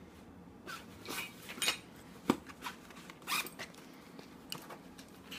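Messenger bag zipper being pulled in several short, scratchy strokes as the bag is opened, with one sharp click about two seconds in.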